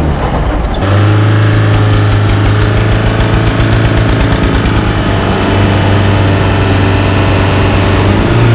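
Eicher 242 tractor and Tata Sumo Gold diesel engines running hard under load as the two vehicles pull against each other: a loud, steady low drone with a fast regular pulse. The sound changes abruptly just under a second in.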